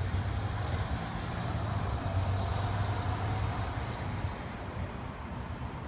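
A motor vehicle's engine rumbling steadily over road traffic noise, easing off slightly after about four seconds.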